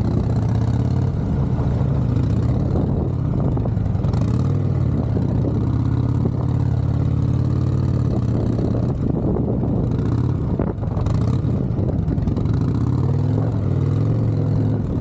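Motorcycle engine running at low speed, its pitch rising and falling with small throttle changes through slow, tight manoeuvres.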